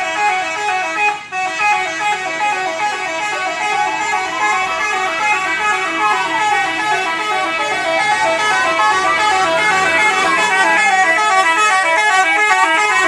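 Haryanto bus's telolet horn, a multi-tone musical horn, playing a fast, repeating chopped melody. About three seconds in, a siren tone joins it, slowly rising and falling about every four seconds.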